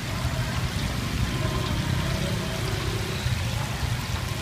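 Chicken pieces deep-frying in a stainless steel fryer tank, the oil bubbling and sizzling steadily, over a low steady rumble.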